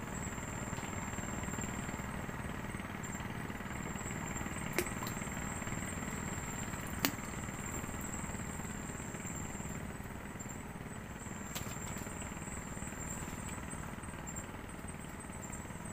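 A small engine running steadily with a low, rapid drone, under a high steady trill of night insects. Two sharp clicks come about five and seven seconds in.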